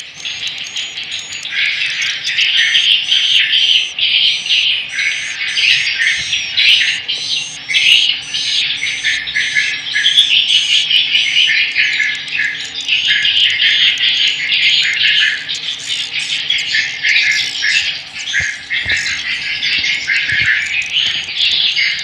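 Swiftlet calls twittering densely and without a break, with a sharp high chirp repeating evenly about twice a second, as played through the tweeters of a swiftlet house to lure the birds in to nest.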